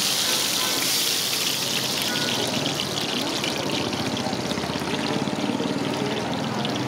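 Deep-frying oil sizzling in a wok, a dense hiss that slowly fades, over a low steady hum.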